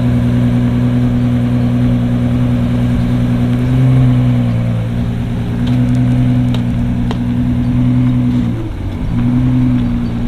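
Car engine running at steady low revs, a deep even note that dips briefly about five seconds in and again near nine seconds.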